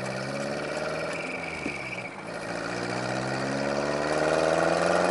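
Subaru Sambar TT kei truck's 660 cc four-cylinder engine, heard from inside the cab through a home-made split-manifold dual exhaust with Cabton-style mufflers. The note holds steady, dips briefly about two seconds in, then climbs in pitch and gets louder as the truck accelerates away.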